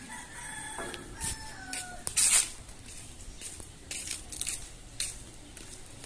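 A rooster crowing: one long call that sags slightly in pitch toward its end over the first two seconds. About two seconds in comes a short loud hiss, followed by scattered light clicks.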